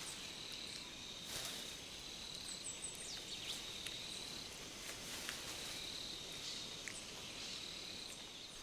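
Tropical rainforest ambience: a steady high insect trill, with short sharp bird chirps scattered throughout and a few faint snaps.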